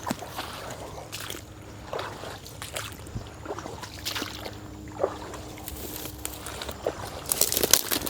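Footsteps of a person walking a trail: an irregular series of steps and swishes, possibly over wet ground.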